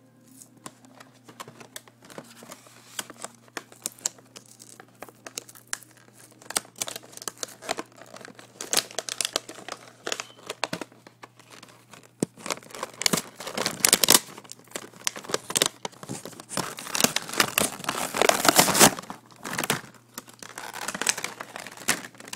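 Boxed collectible figure's packaging being handled and opened by hand, crinkling and rustling in scattered crackles. It grows busier about halfway through, with the loudest crinkling in the last third.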